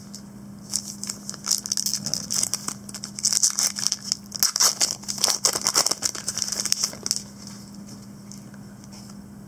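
Foil wrapper of a trading card pack crinkling and tearing as it is ripped open by hand: a dense crackle that starts about a second in and stops a couple of seconds before the end.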